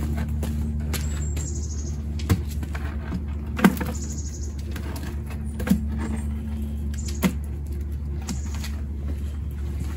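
Gloved hands picking moss and potting soil off the top of a root ball, with a few sharp knocks as a plastic pot is handled, over a steady low hum. Short high bird chirps come a few times.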